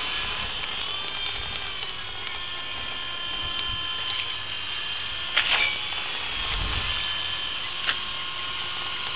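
WL Toys V912 RC helicopter's electric motors and spinning rotors whining steadily in flight, the pitch stepping up slightly about a second in. Two sharp clicks, one about five and a half seconds in and one near eight seconds, and a short low rumble of wind on the microphone between them.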